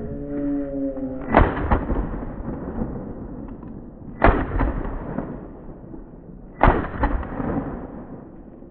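Three shotgun shots about two and a half seconds apart, each trailing off in an echo. A beagle's bay is heard just before the first shot.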